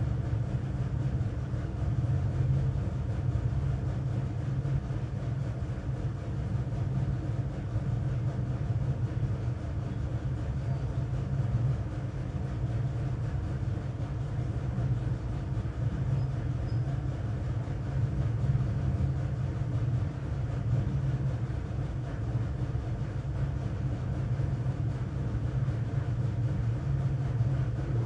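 A steady low rumble and hum.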